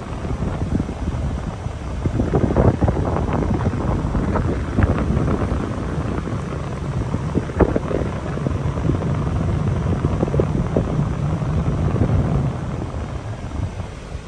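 Wind buffeting the microphone in uneven gusts over the low rumble of a vehicle driving along a street.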